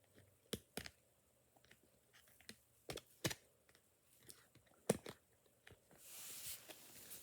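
Scattered sharp clicks and taps of a squishy toy's packaging being handled and opened, followed by a steadier rustling and crinkling from about six seconds in.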